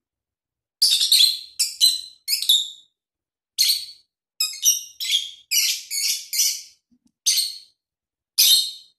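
Small pet parrot giving a rapid series of short, shrill, high-pitched chirps, about a dozen in quick clusters with brief pauses between them.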